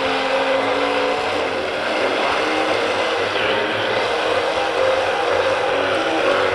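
Electric blender running steadily at high speed, mixing a thick tahini sauce as water is added.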